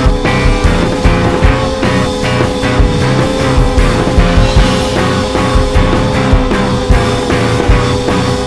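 Rock music with drums and guitar, a steady beat of about two strokes a second under a long held note.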